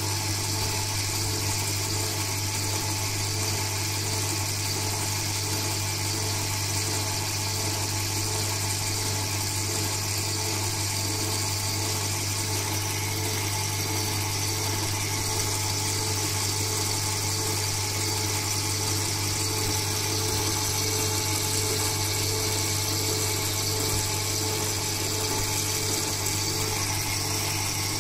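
Handmade coil-winding machine running steadily as it winds enamelled copper wire onto a Tesla coil form, giving a constant low hum with a fine whirring on top.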